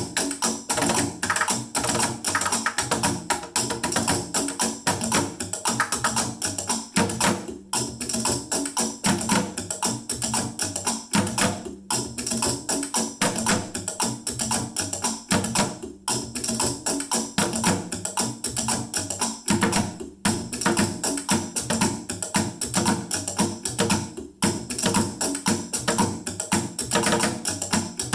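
Drum jam played on found household objects: sticks beating a fast, steady rhythm on items such as plastic food containers, with short breaks about every four seconds.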